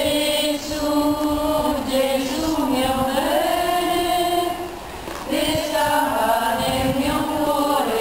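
Crowd of worshippers singing a slow devotional hymn together in long held notes, in two phrases with a short breath about five seconds in.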